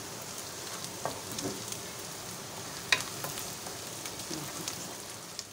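Sliced onions sizzling in hot oil in a metal kadai, stirred with a wooden spoon that knocks and scrapes against the pan a few times, sharpest about three seconds in.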